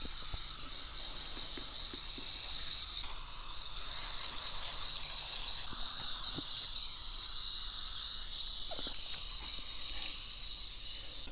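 Garden hose spray nozzle spraying a steady hiss of water onto a Siberian husky's paws, rinsing out Kool-Aid dye. The spray stops at the very end.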